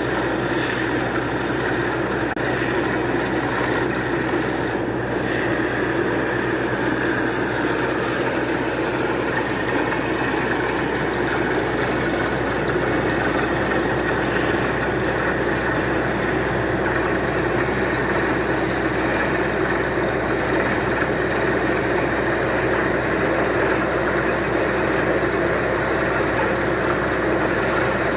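Drilling rig running steadily as it drills down into rock: a continuous engine and drilling noise that holds an even level without pauses.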